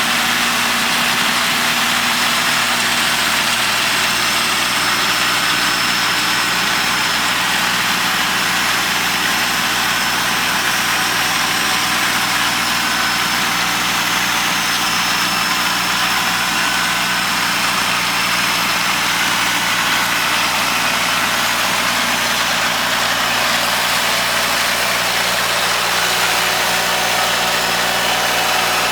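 Kubota L3200 tractor's three-cylinder diesel engine running steadily.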